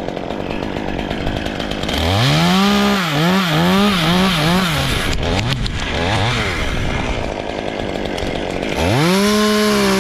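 Stihl two-stroke chainsaw idling, then revved up to full speed about two seconds in with several quick throttle pulses, dropping back to idle, and revved up again near the end.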